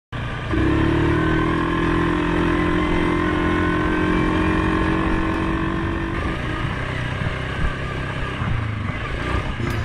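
ATV engine running at a steady pitch, then changing to an uneven, rougher sound about six seconds in as the quad rides along a dirt trail.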